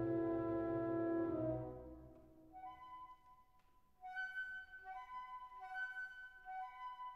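Instrumental background music: a long held chord that fades out about two seconds in, then a soft melody of held notes that grows louder about four seconds in.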